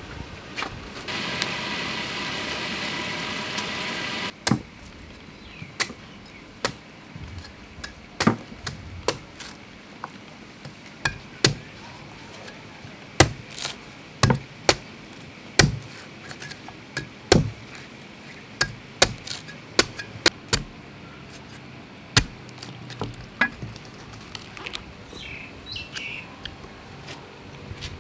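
Cleaver chopping into a young green coconut on a wooden chopping board to open it for its juice: a long run of sharp, irregular whacks, one or two a second. Before the chopping, a few seconds of steady hiss that cuts off suddenly.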